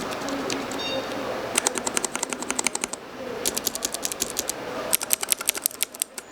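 Keyboard switches on a switch tester being pressed rapidly, sharp clicks about eight a second in three short runs.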